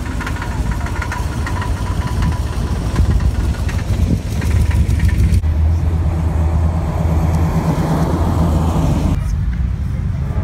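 Classic cars driving past one after another, a steady low engine and exhaust rumble throughout. The sound changes abruptly about five seconds in and again near the end.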